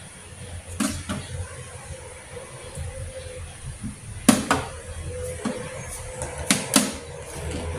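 A knife and chicken carcass knocking against a stainless steel tray as a culled chicken is deboned by hand: several sharp clicks and clanks, the loudest about four seconds in and two more near the end, over a steady low hum.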